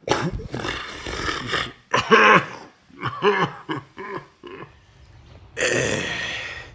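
A man's non-speech vocal noises: a long rasping burst, then a string of short pitched sounds with falling pitch, and another rasping burst near the end.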